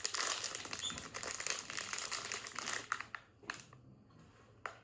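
Plastic packaging crinkling and rustling as a blind-box figure is unwrapped. It stops about three seconds in, followed by a couple of light clicks.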